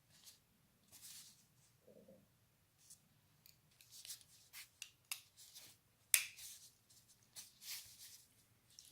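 Faint, irregular small clicks and light scrapes of small hard objects being handled, with one sharper click about six seconds in.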